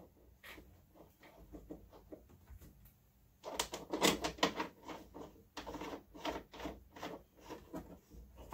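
Hands fitting an O-ringed spout into the hole of a hollow plastic fuel tank: a run of small plastic clicks and knocks, sparse at first and busiest from about three and a half seconds in.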